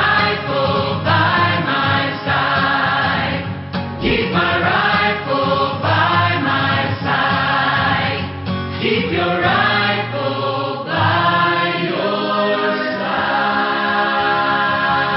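Background music with a choir singing, the voices settling into long held chords near the end.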